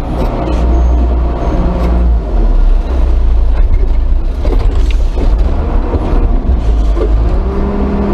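Diesel engine of a Chinese front loader running under way, heard from the cab, with a few sharp knocks and clanks from the machine. A steadier humming tone comes in about seven seconds in.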